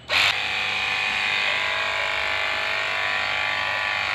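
Small battery-powered spray pump running with a steady electric-motor hum while it sprays.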